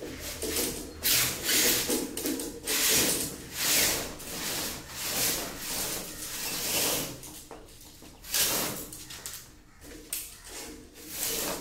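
Insulated electrical wires rubbing and scraping as they are pulled through a plastic wiring conduit, in a series of irregular strokes, each under a second long.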